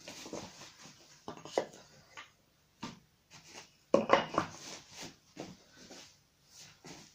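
Short wooden knocks and scrapes as softwood blocks are handled and one is pushed under the bottom edge of a wooden door. The loudest cluster of knocks comes about four seconds in.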